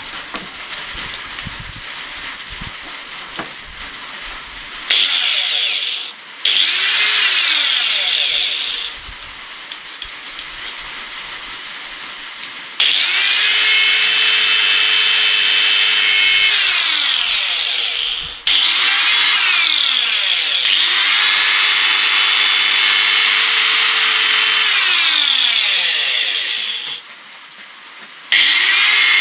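DWT angle grinder switched on and off about six times, spinning free with no load. Each start is a rising whine up to a steady high whine, and each stop a falling whine as the motor coasts down. These are test runs on freshly fitted carbon brushes.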